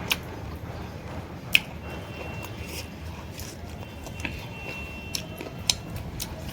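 Eating sounds: quiet chewing broken by a few sharp clicks and crunches, the loudest about a second and a half in.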